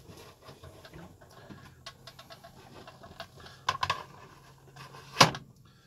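Plastic toy diorama playset being handled and placed on a table: scattered light clicks and taps, a small cluster of them a little before four seconds in, and one sharper knock about five seconds in.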